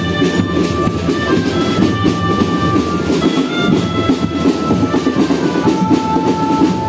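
School marching band playing: busy, continuous drumming under a melody of held notes that step from one pitch to the next.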